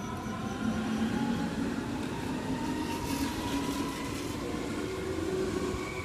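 Train running, with a whine that slowly rises in pitch over rumbling wheel noise.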